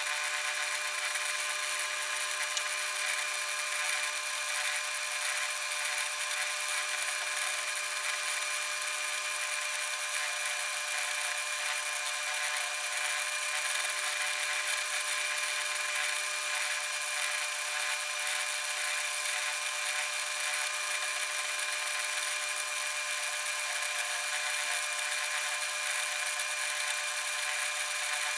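Motor-driven milling attachment on a South Bend lathe running steadily with a constant whine as its cutter mills a flat on a T-nut blank.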